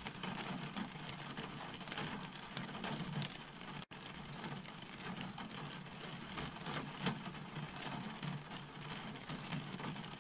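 Steady rain falling, an even hiss full of small pattering drops. It cuts out for an instant about four seconds in.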